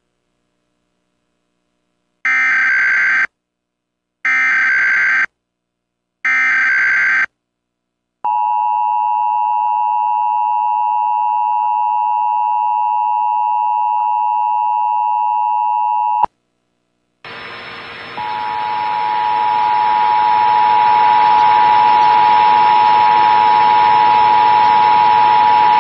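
Emergency Alert System test tones: three short bursts of screeching digital header data, then the steady two-tone attention signal held for about eight seconds. After a short break comes a loud hiss with a steady tone running under it.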